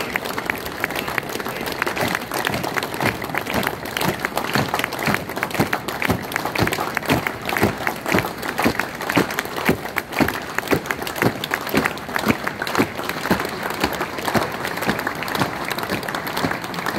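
A crowd applauding steadily while a squad of soldiers marches on stone paving. Their boot steps strike in time at about two a second.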